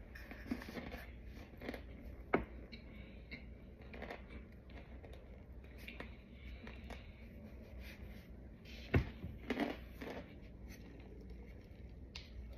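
A plastic baby powder bottle handled and shaken out over a plate of powder: faint scattered clicks, taps and rustles. A sharper knock about nine seconds in is the loudest sound.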